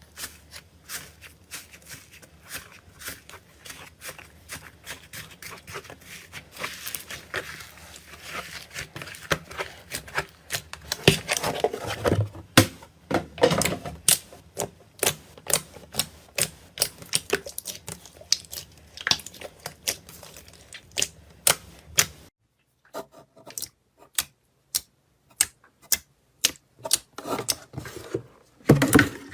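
Rapid, irregular clicking and tapping, many sharp clicks a second, over a low hum that cuts off suddenly about three quarters of the way through, after which sparser clicks continue.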